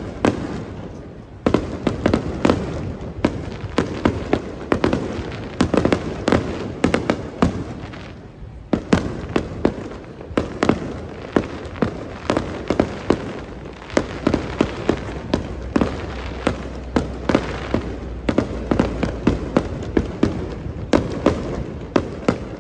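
Aerial fireworks going off in a rapid, irregular string of sharp bangs and crackles, several a second.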